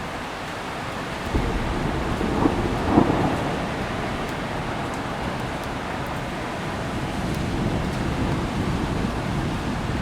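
Steady rain with rolling thunder: a low rumble starts about a second in, cracks loudest about three seconds in, then keeps rumbling under the rain.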